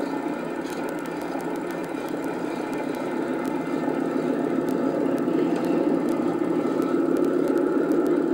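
Steady droning of aircraft engines that grows louder from about halfway through, with light crackling clicks over it.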